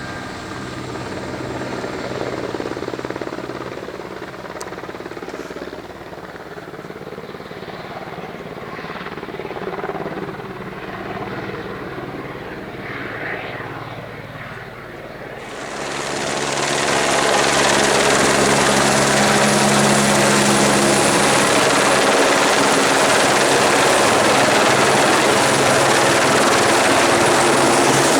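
Helicopter running with a steady engine drone; about halfway through it abruptly turns much louder into an even, rushing noise with a high whine on top, which then holds steady.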